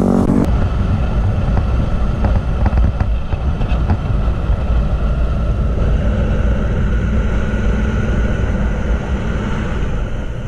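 Motorcycle riding at a steady cruise, heard from a helmet camera: heavy low rumbling wind buffeting on the microphone mixed with the engine's running note.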